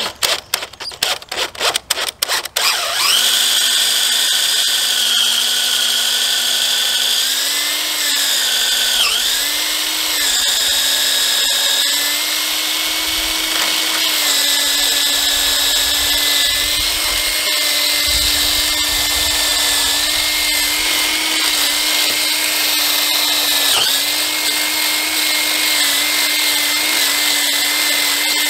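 DeWalt cordless drill boring a long twist bit through a wooden frame board. It starts with a rapid run of short stop-start bursts, then settles into a steady motor whine that dips briefly in pitch a few times.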